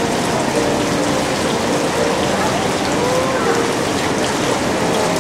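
Steady noise of falling, splashing water, with faint voices in the background.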